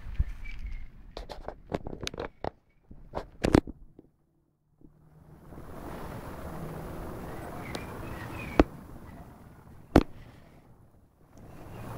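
Handling noise close to the phone's microphone: a run of sharp clicks and knocks, then a steady rustling hiss as fur brushes near the microphone, broken by two single loud clicks.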